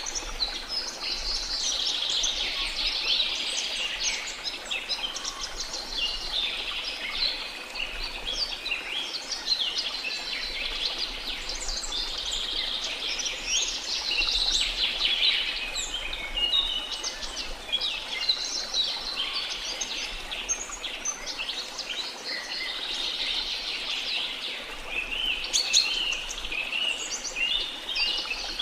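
A dense chorus of many birds chirping and singing at once, short high calls overlapping without pause, over a steady rush of falling water.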